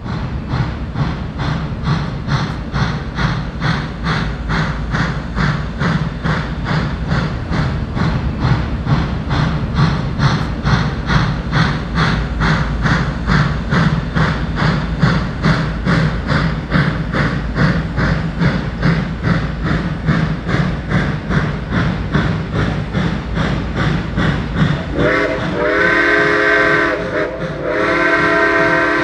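Reading & Northern 425's 4-6-2 Pacific steam locomotive chuffing in a fast, even rhythm as it pulls its train. About 25 seconds in, its multi-note chime steam whistle sounds twice, a short blast and then a longer one, over the exhaust.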